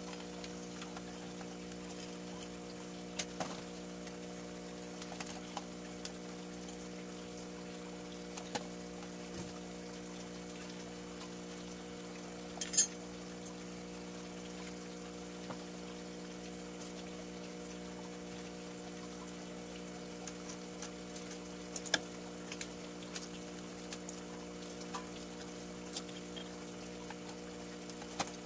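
A steady machine hum with several fixed tones runs throughout. Over it come scattered light clicks and knocks of plastic bottles, a spoon and a plastic cup being handled, with one sharper clack about 13 seconds in.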